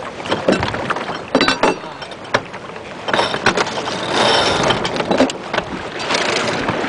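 Crew handling sail and lines on a J/35 racing sailboat's deck: irregular knocks and clicks of lines and deck hardware, with a denser rustle in the middle as a headsail is pulled down at the mast.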